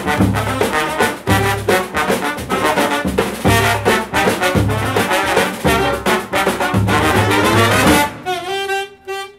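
Balkan brass band playing a fast čoček: trumpets, trombone, alto sax and sousaphone over darbuka, davul and snare drum, with a heavy bass pulse. Near the end the drums and bass drop out and a single held note rings on alone, fading, for about a second.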